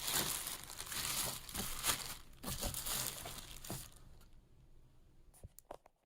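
Packaging being unwrapped from a new coffee grinder, a rustling crinkle with sharp crackles for about four seconds, then a few light clicks and knocks.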